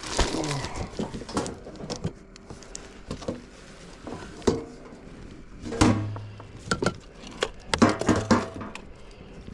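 Scattered knocks and clatter of gear being moved about by hand, with several sharper knocks in the second half.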